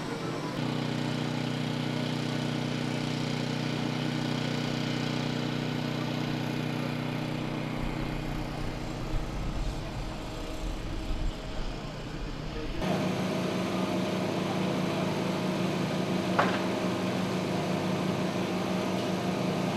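Construction machinery engines running with a steady hum. The sound changes abruptly about 13 seconds in, and there is a single sharp clank near the end.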